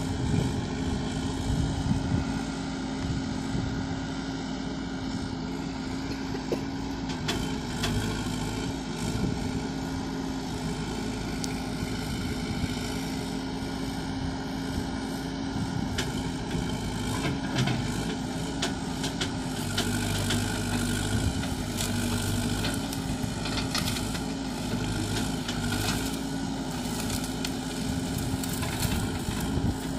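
Backhoe loader's diesel engine running at a steady speed as the machine works. Scattered sharp knocks and cracks come more often through the second half.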